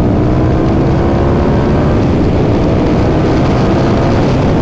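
KTM 1290 Super Duke R V-twin engine running at speed under the rider, fitted with an Akrapovič exhaust and no catalytic converter. Its pitch eases slightly downward, with wind rushing over the microphone.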